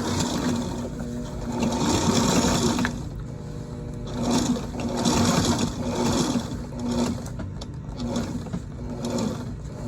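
Sailrite LSZ-1 walking-foot zigzag sewing machine running in several spurts, its motor hum swelling and easing as it zigzag-stitches a Dacron patch onto a sail.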